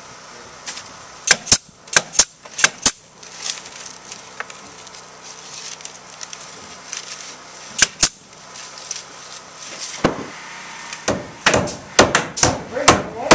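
Pneumatic nail gun firing sharp shots as cedar shingles are nailed to a wooden wall: six in the first three seconds, mostly in quick pairs, and two more about eight seconds in. Near the end comes a quick run of hammer blows on wood with a slight ring.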